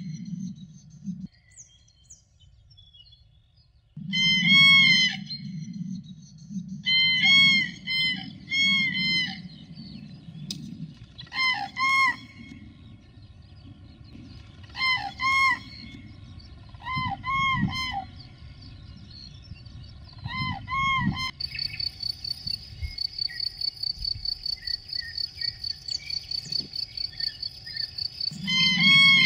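Common cranes calling, loud trumpeting calls repeated again and again, often two at a time, with brief pauses between bouts. About two-thirds of the way in they stop, and an insect's fast, even, high-pitched chirping, a few pulses a second, takes over.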